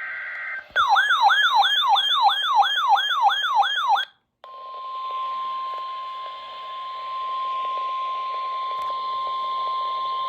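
The end of a SAME digital data burst: a rapid two-tone screech. Then about three seconds of a warbling alert tone that sweeps up and down about three times a second, a brief silence, and the steady single-pitch 1050 Hz NOAA Weather Radio warning alarm tone, which carries on from there over a faint hiss.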